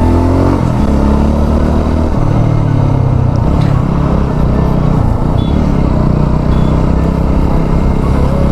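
KTM Duke 200's single-cylinder engine running under way, with road and wind noise; the engine note shifts about two seconds in.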